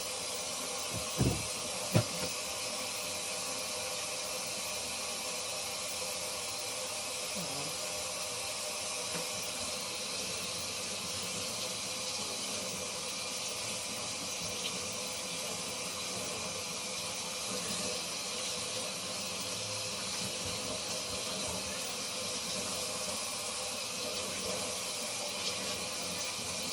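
Tap water running steadily into a sink, an even hiss, with two short knocks about a second and two seconds in.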